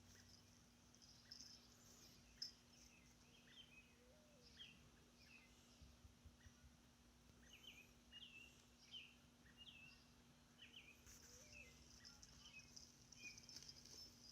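Faint birdsong in the background: many short chirps, several every second, over a low steady hum.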